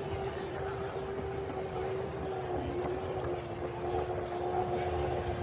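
A scooter's motor running with a steady whine that sinks very slightly in pitch, over a low rumbling noise of riding.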